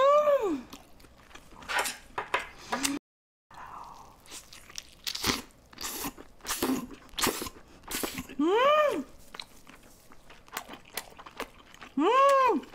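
Close-miked chewing and biting of a giant omelette-wrapped roll, with many short crunchy and wet mouth sounds. Three short hummed 'mmm' sounds rise and fall in pitch: one at the start, one about two-thirds through, and one near the end.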